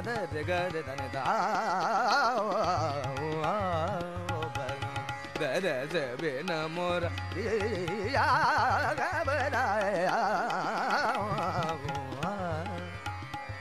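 Indian classical-style background music: a voice sings wavering melodic runs in phrases of a few seconds over a low, steady drone.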